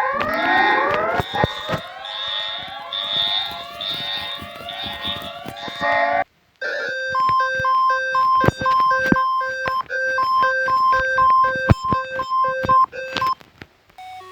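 Synthesized emergency-alert alarm tones. For about six seconds, many overlapping rising siren sweeps play under a pulsing high tone. After a brief cut to silence, a steady pattern of alternating low and high electronic beeps runs for about seven seconds and fades out near the end.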